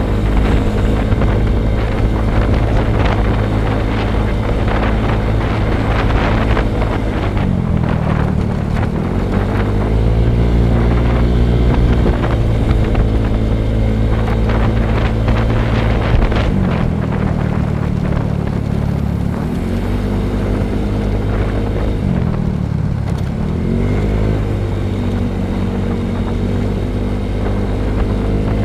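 Motorcycle engine running while riding, with wind noise on the microphone. The engine note drops and picks up again several times as the rider slows and accelerates.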